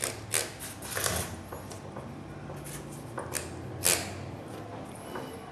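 A few scattered knocks and rubs of handling as the metal engine cover is shifted and turned by hand on its mat, with no engraver running.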